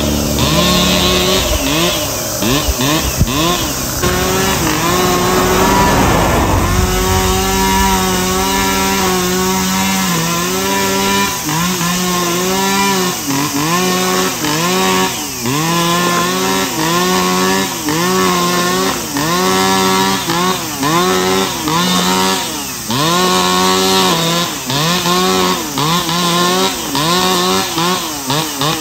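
Two-stroke brushcutter with a nylon-cord head cutting grass, its engine speed rising and dipping about once a second as the throttle and load change.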